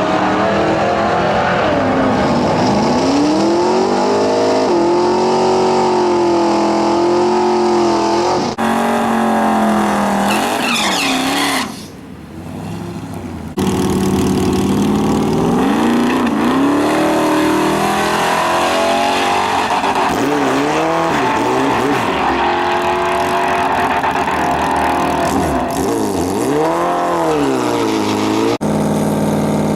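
Drag-racing vehicle engines revving hard and accelerating, the pitch climbing and holding, then sweeping up and down, over several edited clips with abrupt cuts. Near the end an engine settles into a steady idle.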